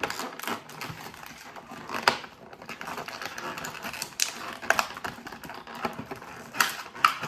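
Hard plastic action-figure parts being handled and snapped together, giving irregular clicks and knocks with a few louder snaps.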